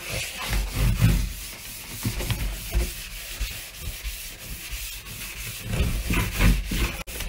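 Spontex scrub sponge scouring a ridged stainless-steel sink drainer wet with foaming cleaner, in repeated back-and-forth rubbing strokes.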